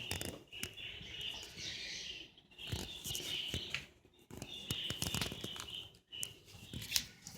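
Birds chirping and chattering in stretches of about a second, mixed with scattered short clicks and flutters.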